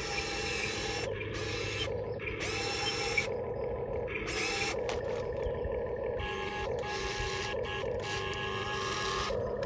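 Electric motors of a 1:20 scale Diecast Masters CAT 330D L RC excavator whirring as the boom, bucket and tracks are worked, cutting in and out every second or so over a steady hum.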